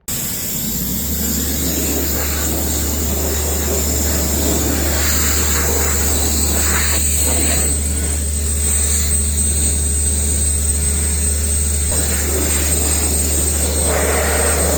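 A blower running steadily at full speed, blowing dust and chaff off the truck, with a constant low engine hum and a high whine.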